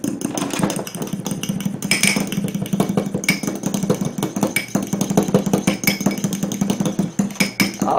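Metal spoon beating egg yolks in a small glass bowl: fast, steady clinking of the spoon against the glass, several strokes a second.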